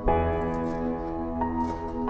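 Soft background music of sustained, chord-like tones, with a new chord struck at the start and another change about one and a half seconds in.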